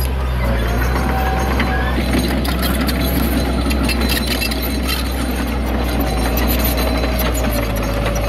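Heavy diesel earthmoving machinery running steadily, with repeated metallic clanks and rattles over a low engine drone as rocky soil is unloaded and pushed.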